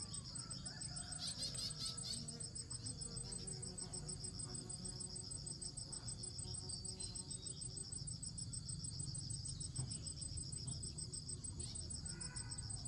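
Insects chirring steadily in a fast, even, high-pitched pulse.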